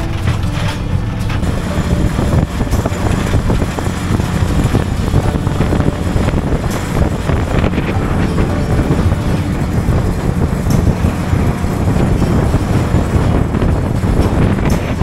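Steady low rumble of a motor vehicle on the move, engine and road noise running without a break.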